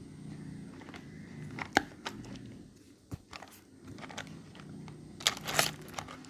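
Handling of small toy kitchen pieces and their packaging during unboxing: scattered sharp clicks and taps, then a short burst of crinkling about five seconds in.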